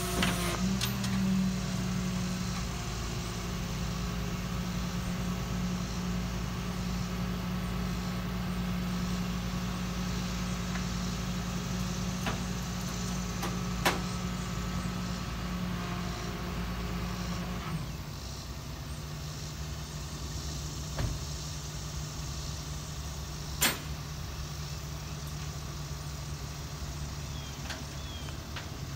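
Flatbed tow truck's engine idling steadily, its hum dropping slightly in pitch about two-thirds of the way through. Two sharp clicks stand out, one near the middle and one later, while the loaded van is being secured on the bed.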